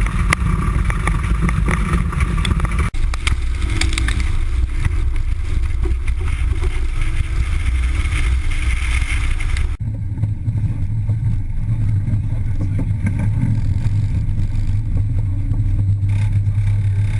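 1985 Toyota MR2's 1.6-litre four-cylinder engine running hard, with loud hiss and rattle from tyres and the car on the course. About ten seconds in, the hiss cuts out suddenly and the engine settles into a steady low drone.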